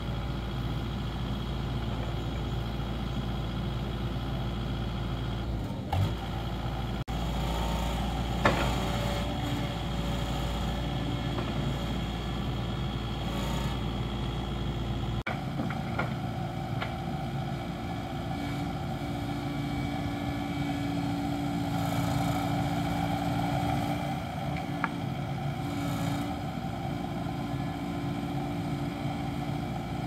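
Kubota compact excavator's diesel engine running steadily under load as it digs, with the hydraulics working and a few sharp knocks.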